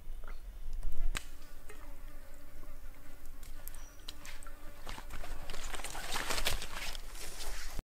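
Flies buzzing over a trickling creek, with a sharp knock about a second in. Near the end come splashing and rustling as someone wades through shallow water.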